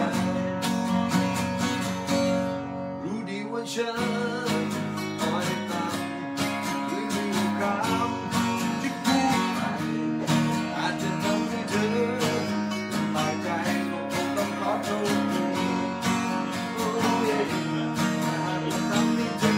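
Two acoustic guitars strummed together, with a man singing over them.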